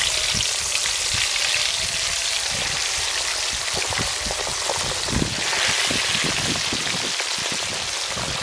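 Marinated fish pieces deep-frying in hot oil in a steel kadhai: a steady sizzle with many crackling pops.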